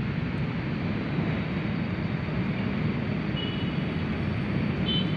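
Steady low rumbling background noise of an outdoor city setting, with a few faint short high tones about three and a half and five seconds in.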